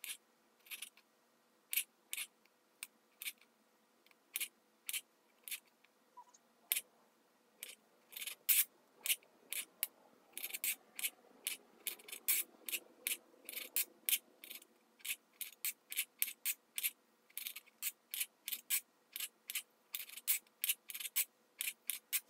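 Kitchen knife cutting grape tomatoes into quarters on a cutting board: sharp taps of the blade against the board, spaced out at first, then quicker, about two or three a second, from about ten seconds in.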